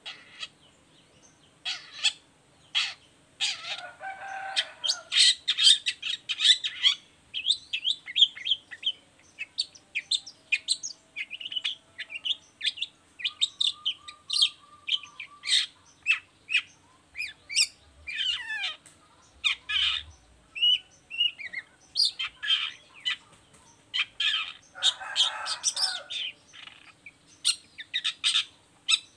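Long-tailed shrike (cendet) singing a rapid, varied run of sharp chirps, trills and chatters, broken by a harsh rasping burst a few seconds in and another near the end.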